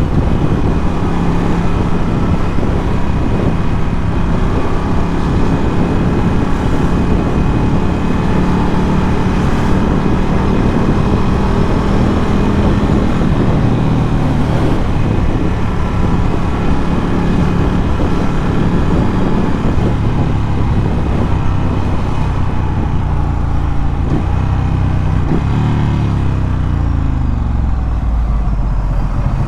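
Ducati Scrambler 1100's air-cooled L-twin engine breathing through a Termignoni exhaust, running steadily while riding. Over the last few seconds the engine note falls in pitch as the bike slows down.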